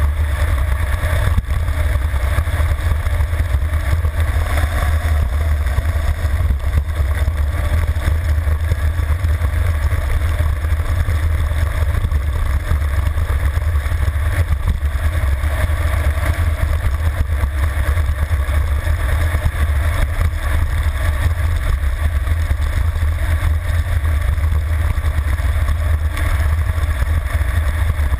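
Wind rushing over a handlebar-mounted camera's microphone on a road bike descending at high speed: a steady, loud low rumble with a hiss above it.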